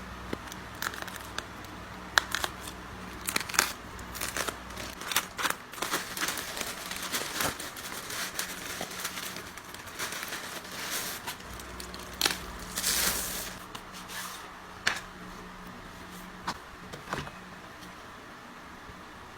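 Plastic and paper packaging crinkling and rustling, with irregular sharp clicks and taps, as merchandise is unwrapped and handled. The handling sounds thin out near the end, leaving a faint steady hum.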